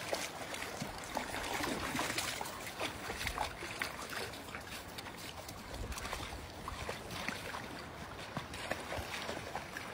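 Dogs wading through a shallow, icy river, the water splashing irregularly around their legs over the steady rush of the flowing current.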